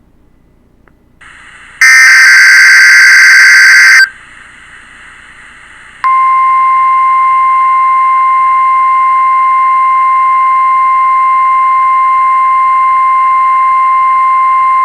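Oregon Scientific WR196T weather radio relaying a NOAA Weather Radio Required Weekly Test through its speaker. After a short hiss as the receiver opens, a loud, raspy burst of SAME digital header data lasts about two seconds. About two seconds later the steady 1050 Hz warning alarm tone sounds for about nine seconds and cuts off near the end.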